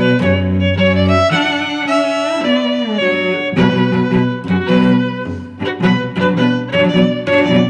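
Background music played on bowed strings, with violin and cello. Long held notes change to quicker, shorter notes about three and a half seconds in.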